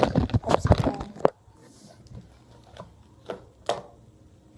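Slime being squeezed and poked by hand, making a quick run of sticky crackling pops and clicks for about a second, then a few separate clicks.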